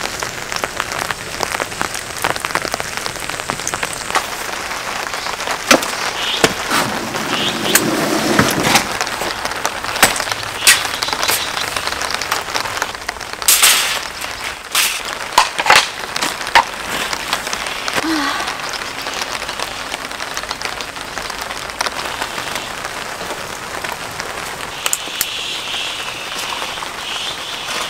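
Steady rain falling, drops pattering on a camping tarp, with scattered sharp taps and knocks.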